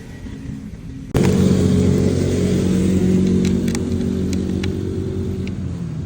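Motorcycle engine running steadily, turning abruptly louder about a second in, with a few light clicks or rattles over it.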